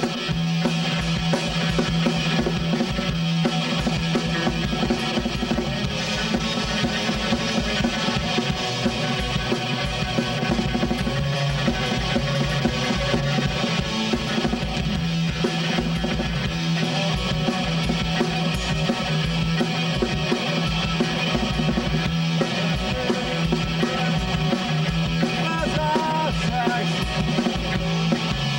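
Live rock band playing electric bass, drum kit and electric guitar, with a driving bass line and steady drumming.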